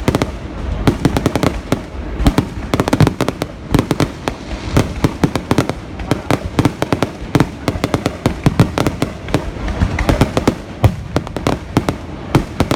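Fireworks display: a dense, continuous barrage of sharp bangs, several a second, from shells bursting overhead.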